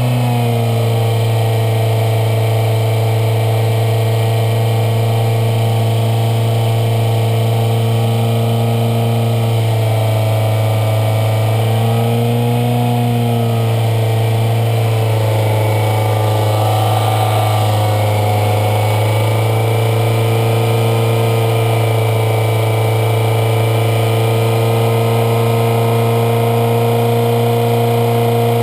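2003 Toyota Corolla's 1.8-litre four-cylinder engine running steadily while SeaFoam is poured into its throttle body. Its pitch sags and recovers briefly about twelve seconds in and again a few seconds later as it takes in the cleaner.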